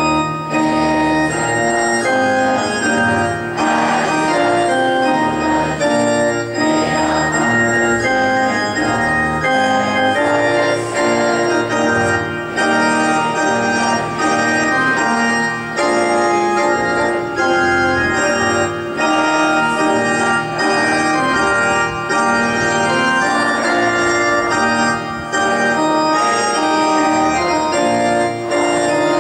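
Organ playing a slow tune in sustained, held chords that change every second or so, with short breaks between phrases.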